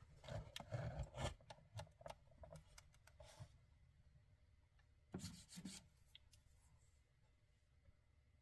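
Faint rubbing and small clicks of hands handling a plastic tool case, a cluster over the first few seconds and two short scrapes a little past the middle.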